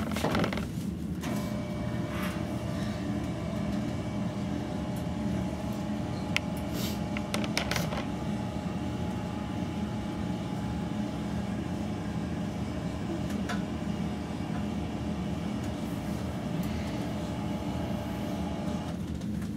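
Electric hospital bed's lift motor running steadily as the bed is raised, a steady hum starting about a second in, with a few faint clicks.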